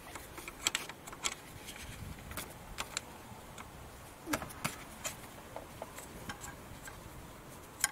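Scattered light metallic clicks and clinks of an open-end wrench and fitting as the union nut of a common-rail diesel injector's high-pressure fuel pipe is loosened.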